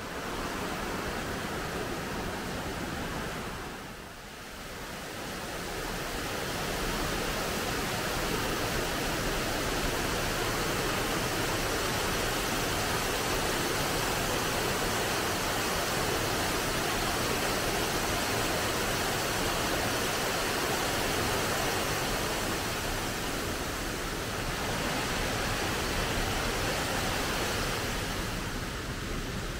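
A large waterfall running steadily, an even rush of falling water. It dips briefly about four seconds in, then comes back fuller and holds steady.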